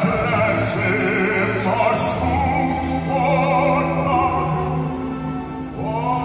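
Male bass-baritone voice singing with vibrato into a microphone over a symphony orchestra's held string chords, sliding up into a new note near the end.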